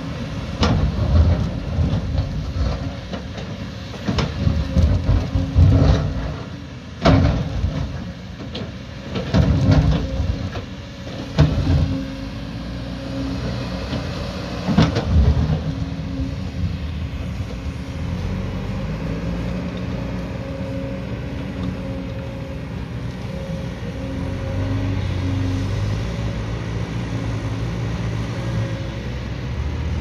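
Kobelco 220 tracked excavator digging in rocky earth, its diesel engine running under hydraulic load. Through roughly the first half there are repeated sharp knocks and clatter of the bucket working in rock and soil. After that the engine runs steadily.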